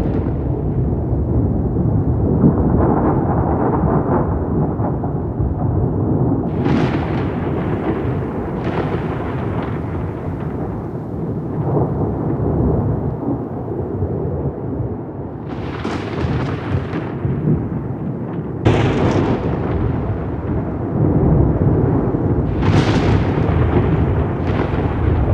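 Thunderstorm with continuous rolling thunder rumbling low, broken about six times by sudden sharp cracks of closer thunder that then roll away.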